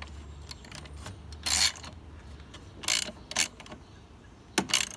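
Socket ratchet clicking in a few short strokes with pauses between, tightening a nut on a radiator fan-assembly bracket.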